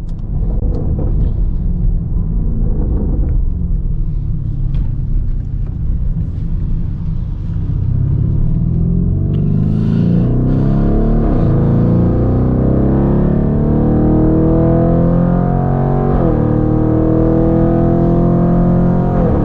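Lamborghini Urus twin-turbo V8 with a Capristo straight-pipe exhaust, running at low revs and then accelerating hard. The revs climb steadily and drop sharply at three upshifts.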